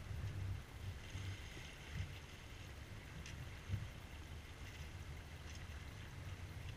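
C&C Mirage 24 sailboat under sail: wind buffeting the camera microphone as a low, uneven rumble, with water rushing along the hull as a faint hiss. One louder buffet comes a little past the middle.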